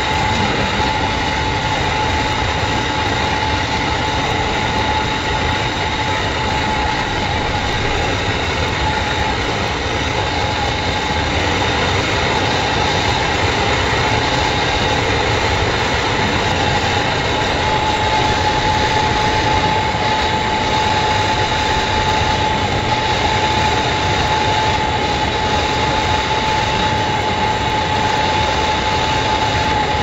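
Portable butane gas torch burning steadily: a continuous rushing hiss with a faint steady whistle running through it.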